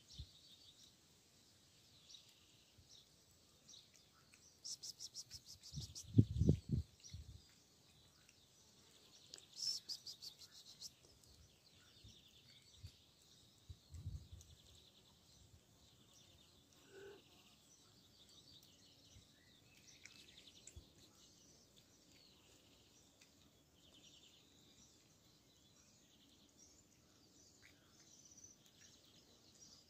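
Faint outdoor ambience of birds chirping, with two brief bursts of rapid high ticking about five and ten seconds in and a few low thumps.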